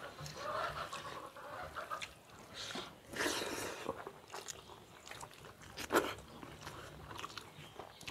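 Two people eating rice and fish curry by hand: wet chewing and lip smacking, with fingers mixing rice on steel plates. The sharpest smacks come about 3 and 6 seconds in.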